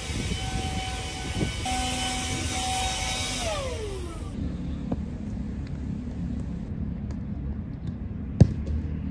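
A steady high, machine-like whine with overtones that slides down in pitch and dies away about four seconds in. A low steady rumble follows, with one sharp knock near the end.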